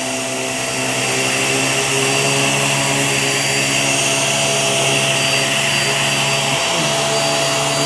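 Hoover React QuickLift upright vacuum cleaner running steadily with an even motor hum, pushed over carpet to pick up clumps of pet hair.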